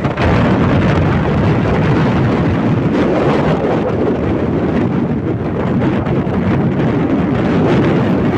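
Steady wind buffeting the microphone on a moving vehicle, mixed with the running noise of the vehicle and its tyres on the road.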